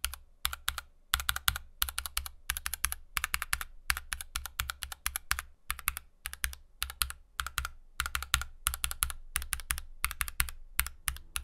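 Typing in quick runs of keystrokes on a Glorious GMMK Pro aluminium mechanical keyboard with hand-lubed switches, each keypress a crisp clack over a deep thock, with brief pauses between runs.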